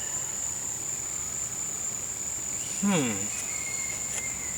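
Steady, unbroken high-pitched insect trill, with a couple of faint clicks near the end.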